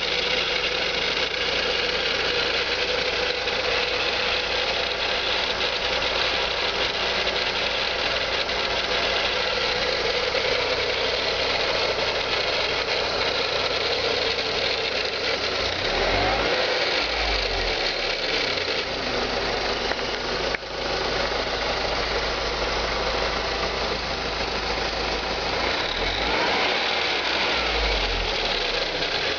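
BMW E46 318i engine running with a steady rattling noise that the owner finds odd. The pitch shifts briefly about halfway through and again near the end.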